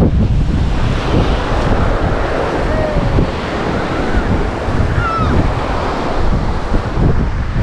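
Sea surf breaking and washing up the sand at the water's edge, with strong wind buffeting the microphone.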